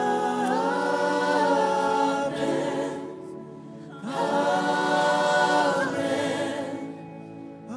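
Worship team and congregation singing a drawn-out "Amen" refrain together, in two long sung phrases of about three seconds each with a short break between.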